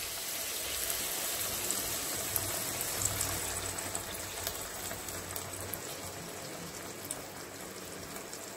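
Water poured from a glass into a hot pan of frying tomatoes, cashews and whole spices, sizzling and bubbling with small crackles, easing off slowly.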